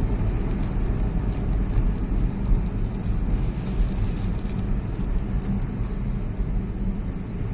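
Steady low rumble of a moving road vehicle, with road and wind noise.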